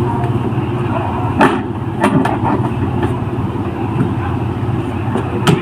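Easyride 150N scooter engine running at idle, with a few sharp knocks over it: one loud knock about a second and a half in, two close together just after, and another near the end. The knocks are struck by hand to fake an engine knock as a prank, not an engine fault.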